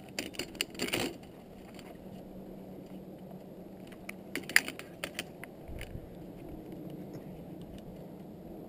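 Metal clicks and clinks of carabiners and a zipline trolley being clipped onto the steel cable, in two quick clusters: through the first second and again around four to five seconds in, over a faint steady background noise.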